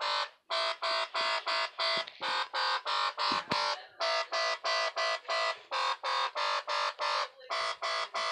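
Electronic intro music: a fast run of short, identical buzzy notes, about three a second, broken by brief pauses twice.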